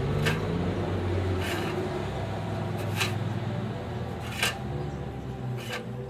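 Background music: held low notes with a soft beat about every one and a half seconds.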